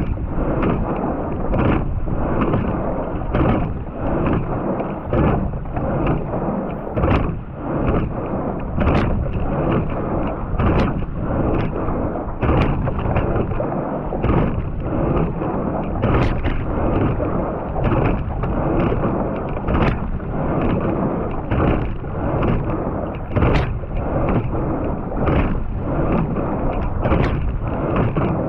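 Racing quad scull under way at about 33 strokes a minute: water and wind rush steadily past, with a sharp clack from the oarlock and oar about every 1.8 seconds, one for each stroke.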